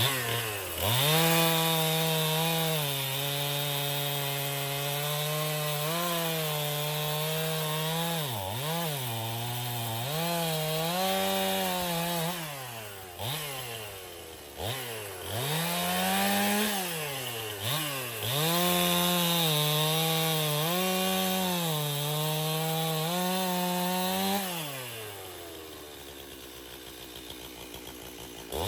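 Chainsaw cutting through a log, its motor held at high speed and then repeatedly dropping in pitch and revving back up. Near the end it winds down to a much quieter low run.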